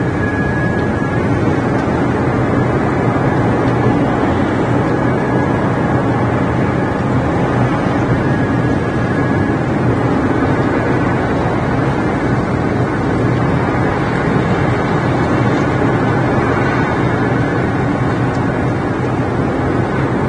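Steady rain on the nest-ledge camera's microphone, a loud, even rushing noise with no distinct drops or events.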